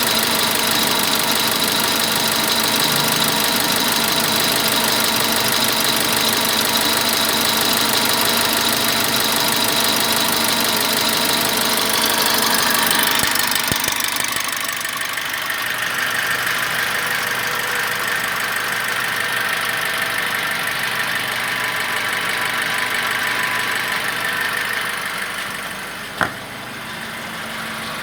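Toyota Calya's 1.2-litre four-cylinder petrol engine idling after a morning start, running rough with a diesel-like clatter. Its sound drops a little about halfway through, and there is one sharp click near the end.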